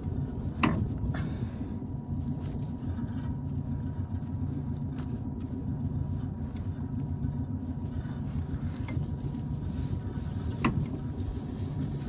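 Tractor engine idling steadily beside the stopped big square baler, with a faint steady whine over it. Two sharp metallic clicks, one about a second in and one near the end.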